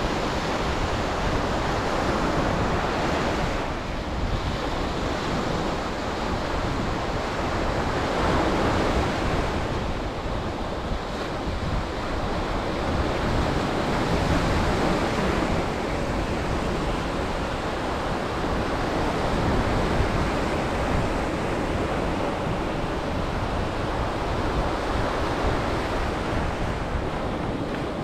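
Surf breaking on a sandy beach: a continuous wash of waves that swells and eases every several seconds, with wind buffeting the microphone.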